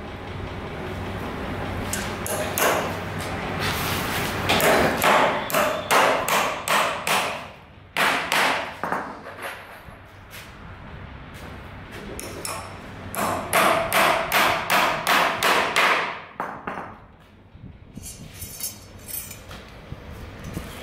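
Hammer nailing timber battens of a wooden shuttering (formwork) frame: two quick runs of blows, about three a second, with a pause between them and a few lighter taps near the end.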